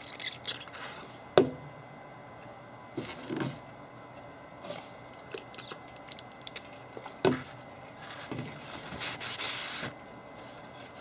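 Quiet handling sounds as a copper circuit board is squirted with denatured alcohol from a squeeze wash bottle over a metal pan. Two sharp knocks, about a second and a half in and again about seven seconds in, with a short rustle of paper towel near the end.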